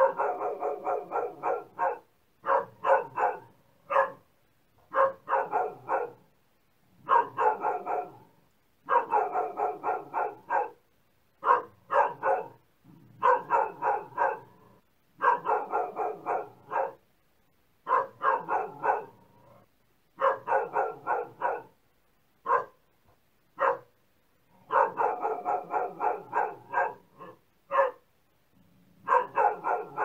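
A dog barking repeatedly, in quick runs of several barks with brief pauses between the runs.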